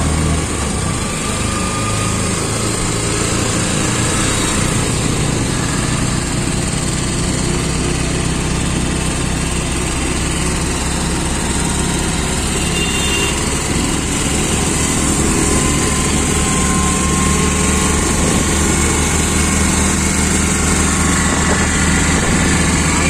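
Auto-rickshaw's small engine running steadily as it drives along, heard from inside the open passenger cabin, with road and traffic noise around it.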